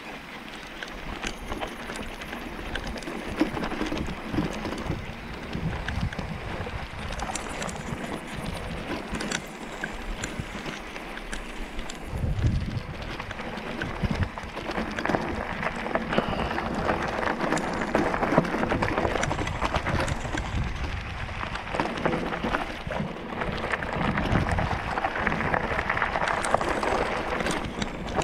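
Mountain bike rolling downhill on a rough dirt track: tyres crunching and the bike rattling over the ruts, with wind rushing across the microphone. It gets louder and rougher about halfway through, as the track turns to loose gravel.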